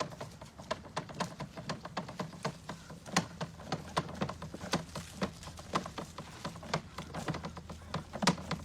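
Irregular light clicks and taps of small hard objects, several a second, over a steady low hum.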